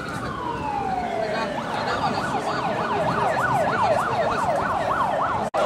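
Emergency vehicle siren: a slow wail falling away, then switching about two seconds in to a fast yelp, about three to four sweeps a second, over crowd noise. The sound cuts out for a moment near the end.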